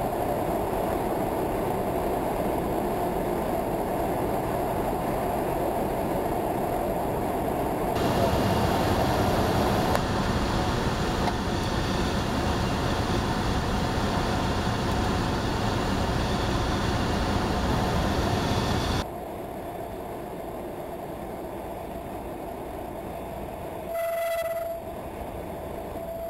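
Cabin noise of a Cessna 172 on approach and landing: the steady drone of its engine, propeller and rushing air, dropping sharply in level about two-thirds through. Near the end the stall warning horn sounds a steady tone for about a second, typical of the landing flare just before touchdown.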